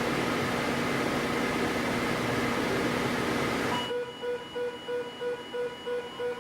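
Weather radio receiver hissing with static for about four seconds, then cutting off abruptly as the radio's built-in alert alarm starts: a repeating electronic beep of several tones, about two to three beeps a second.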